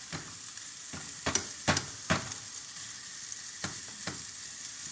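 Cheeseburger patties sizzling in a frying pan, a steady hiss. Over it come about six sharp knocks against the pan, the loudest three close together about a second and a half in.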